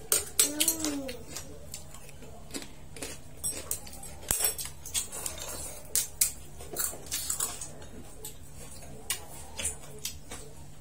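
Chopsticks and utensils clicking and tapping against ceramic plates and bowls during a meal, in many scattered light clicks. A short voice is heard about half a second in.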